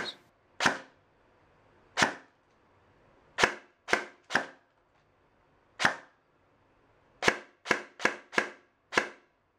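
Airsoft M4 firing single shots, about eleven sharp cracks at uneven intervals, with a quick run of five near the end. It is fed unwashed BBs from a mid-cap magazine that is not feeding every shot.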